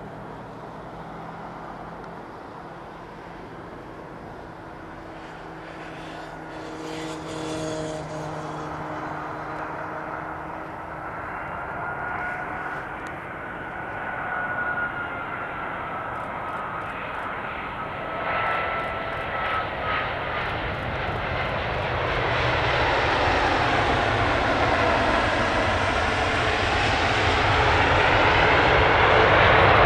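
Airbus A380's four Rolls-Royce Trent 900 jet engines on landing, growing steadily louder as the airliner comes in over the runway and rolls past close by. A high engine whine wavers in pitch through the middle.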